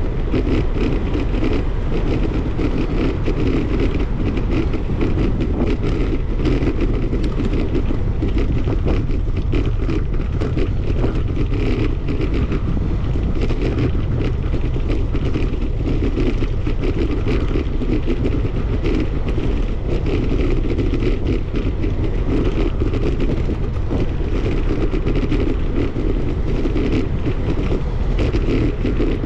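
Steady wind rush and low rumble on the microphone of a camera riding along on a moving bicycle, with constant small clicks and rattles from the ride.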